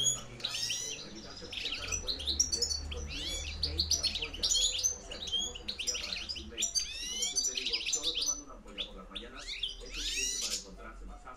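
European goldfinch calling loudly and continuously: quick twittering chirps and sharp rising and falling notes, the strong wild-style ('campero') call wanted in a goldfinch decoy bird.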